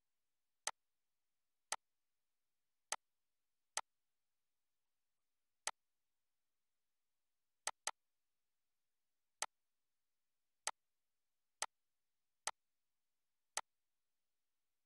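Computer mouse clicks: about a dozen single clicks at uneven intervals, with one quick double click near the middle.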